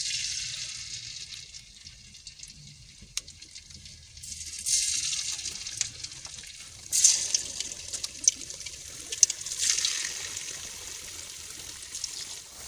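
Batter-coated potato wedges dropped one at a time into hot oil in an iron kadai. Each one sets off a surge of sizzling that dies down, with scattered crackles and pops. There is one surge at the start and fresh ones about five, seven and ten seconds in.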